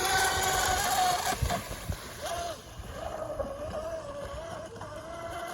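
Brushless electric motor of an RC mono boat on 4S power (SSS 2030kv) whining as the boat runs on the water, its pitch wavering as the throttle and the hull's contact with the chop change. It is louder for the first two seconds, then fainter and steadier.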